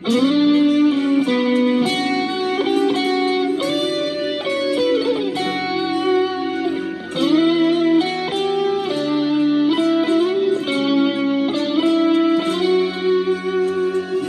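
Fender Stratocaster electric guitar playing a single-note melody with string bends that slide the pitch up, over held lower notes.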